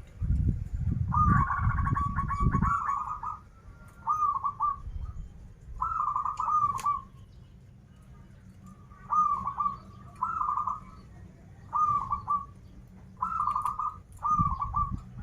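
Zebra dove (perkutut) cooing: about ten short, warbling coo phrases, repeated with gaps of a second or so. A low rumbling noise runs under the first few seconds and returns briefly near the end.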